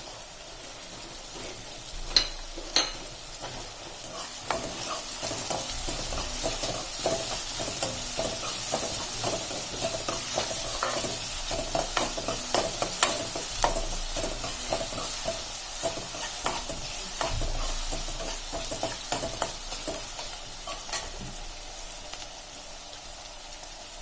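Chopped onions sizzling as they fry in hot oil in a kadai, with a spatula scraping and clicking against the pan as they are stirred. The stirring begins with two sharp knocks about two seconds in, goes on steadily and dies away near the end, leaving the sizzle.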